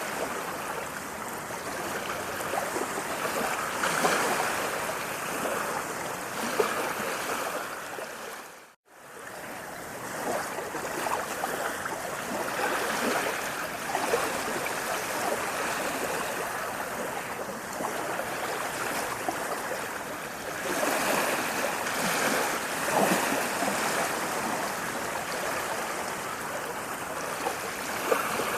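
Steady rushing of running water, like a stream, with small splashes through it. It fades out to a moment of silence about nine seconds in and swells back, as at a loop join.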